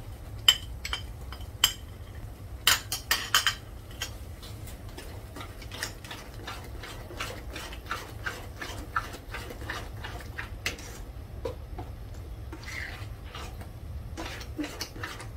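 A metal spoon stirring thick pav bhaji in a steel pot, clinking and scraping against the pot's sides. A few sharp clinks come in the first few seconds, then a long run of smaller clicks as the stirring goes on.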